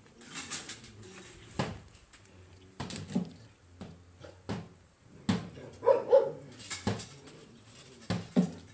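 A chicken repeatedly leaping at its own reflection in a mirror: a series of sharp knocks and wing flaps, roughly one a second, with a short cry about six seconds in.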